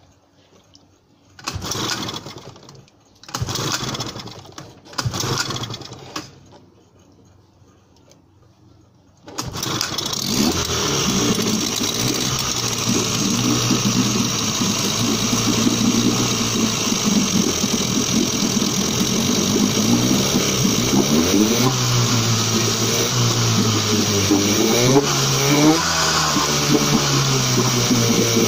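1977 Suzuki DT9.9 two-cylinder two-stroke outboard being started: three short bursts about a second and a half apart, a few seconds of quiet, then it catches about nine seconds in and keeps running, its revs rising and falling several times near the end.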